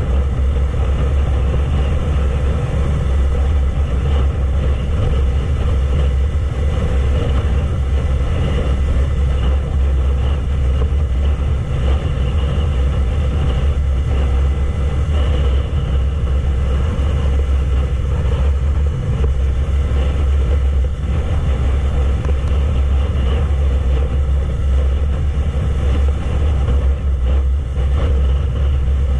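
Wind buffeting the microphone as a steady low rumble while a Yamaha YZF-R3's parallel-twin engine runs evenly underneath at a steady cruise.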